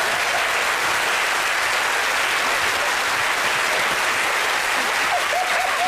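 Studio audience applauding steadily, with a voice coming in near the end.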